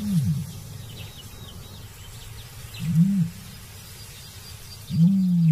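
Male ostrich booming: deep hooting calls, two short ones and then a longer one near the end. This is the territorial and courtship call of a male ready to mate.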